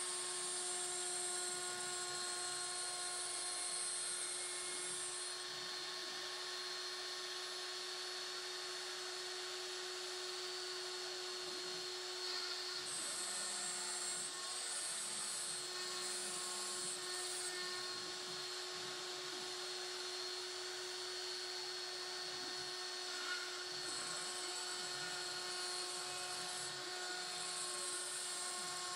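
Proxxon milling motor on a homemade CNC gantry router spinning steadily with a drill-like whine as its bit cuts into wood. A very high hiss comes and goes in spells of a few seconds.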